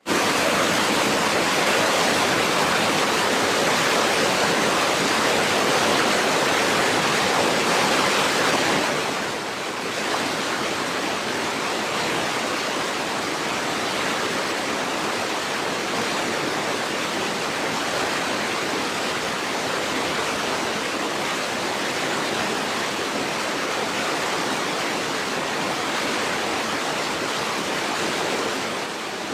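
Steady rushing water, dipping briefly about nine seconds in and then running on a little quieter.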